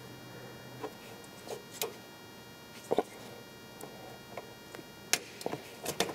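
Irregular light clicks and taps of hands working a plastic wiring-harness connector, pressing its locking tab and turning its cam lever to unplug it. The loudest click comes about three seconds in, with another sharp one near the end.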